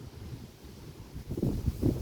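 Wind buffeting the microphone, rising into loud gusts about halfway through.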